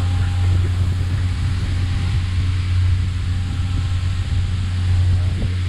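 Fishing boat's engine running steadily under way, a low drone, over the hiss of the wake and spray rushing past the hull.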